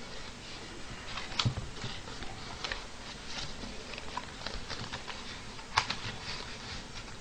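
Plastic takeout food containers being handled and set down on a table: scattered light clicks and crinkles, with two sharper knocks, one about a second and a half in and one near six seconds.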